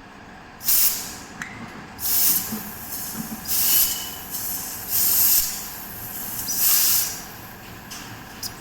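Five loud, short bursts of high-pitched hissing, each about half a second to a second long, coming roughly every one and a half seconds.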